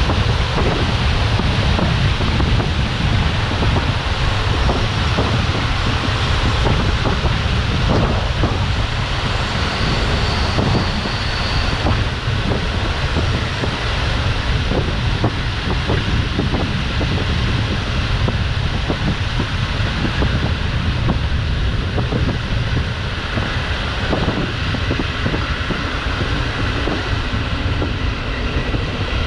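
Passenger train coach running along the track, wheels knocking and clattering over rail joints under a steady rumble, with wind rushing past an open window. The sound eases somewhat in the second half.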